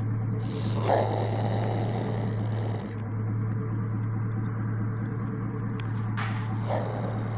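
Raccoon in a wire cage trap growling, a low steady rumble, with a harsher rasp about a second in and a few light clicks near the end.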